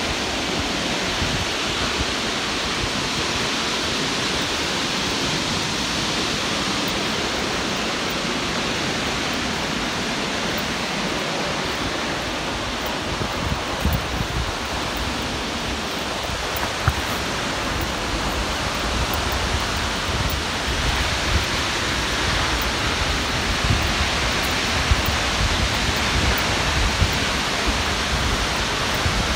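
Steady rushing of a 25-metre waterfall plunging into its pool. A low rumble underneath grows stronger in the second half.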